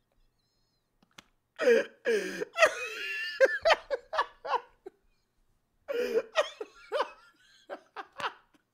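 A man laughing hard in two long fits, breaking into a high-pitched squeal about three seconds in.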